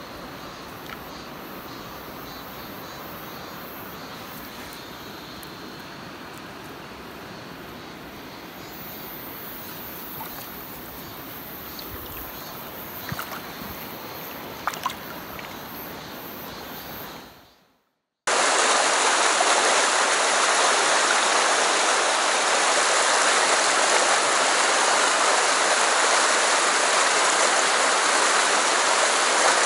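Mountain stream water running, at first quieter and close around hands in the water, with a few light splashes. About two-thirds of the way through it fades out briefly, then louder, steady rushing of the stream's rapids comes in.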